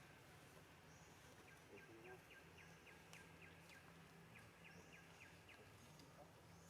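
Faint outdoor ambience: a quiet, regular series of short chirps, about four a second in runs, with a few higher bird calls over a low steady hum.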